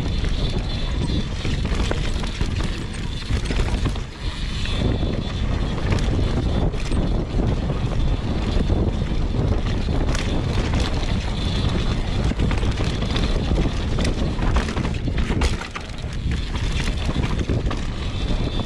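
Wind rushing over the camera microphone and mountain bike tyres rolling fast over a dirt singletrack, with the clatter and knocks of the bike over roots and rocks. The noise dips briefly twice.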